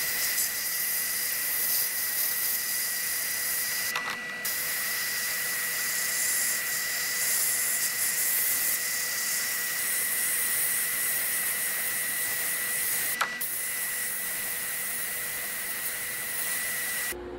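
Sandblasting cabinet gun blasting aluminum oxide grit against sheet-metal parts: a loud steady hiss with a faint high whistle, broken off briefly twice and cutting off just before the end.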